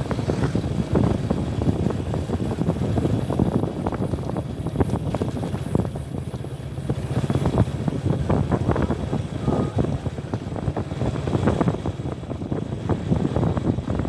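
Honda Tiger's single-cylinder four-stroke engine running as the motorcycle rides along, mixed with wind buffeting the microphone.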